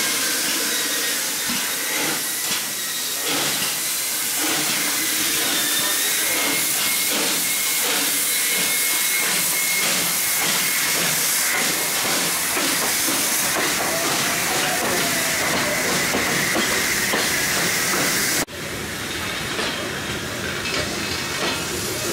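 Steam locomotive hissing loudly and steadily, steam venting around its driving wheels and cylinders. About 18 seconds in the sound cuts off abruptly and gives way to a quieter train sound as the coaches go by.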